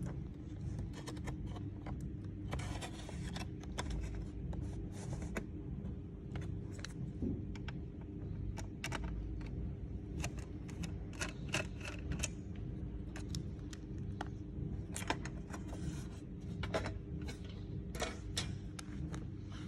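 Scattered small clicks, taps and brief scrapes of laptop parts being handled, over a steady low hum.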